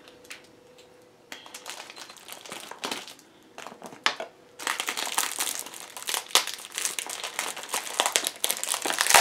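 Plastic wrapping and a small plastic bag crinkling as they are handled and worked open. The crackles are sparse at first and become continuous about halfway through.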